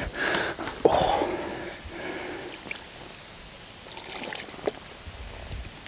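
A large carp thrashing while held out of the water: a sharp wet slap about a second in, then water splashing and dripping off the fish.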